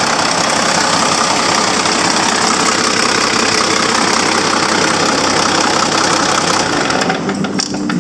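Caterpillar 3306 PC turbocharged, aftercooled six-cylinder diesel engine running steadily with diesel clatter. The high hiss drops away near the end.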